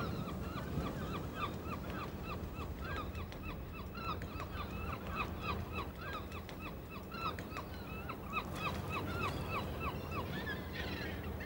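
A flock of gulls calling, many short calls overlapping several times a second, over a low steady rumble.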